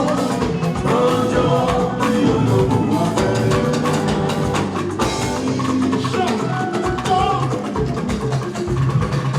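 Live band playing upbeat dance music with a drum kit and percussion, and a voice singing over it.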